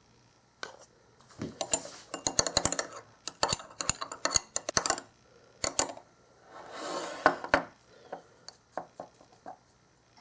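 A small spoon clinking rapidly against a small glass bowl as egg is beaten into milk. After that comes a brief rustling scrape, then a few scattered light clicks of a spoon on glass.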